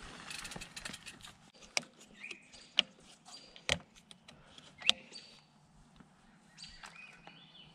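Canyon Torque mountain bike being lifted onto a hitch-mounted car bike rack and strapped down: a series of sharp clicks and knocks of metal and plastic as the frame settles and the rack's arms and straps are fastened, with short high squeaks in between. At first there is a soft rolling noise of the bike coasting to a stop.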